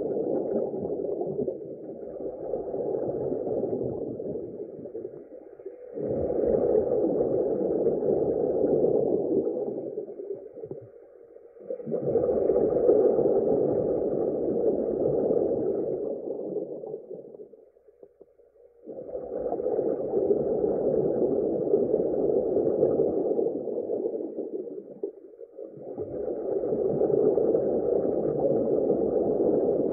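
Low, muffled rushing noise swelling and fading in five long surges of about five seconds each, with brief dips between them.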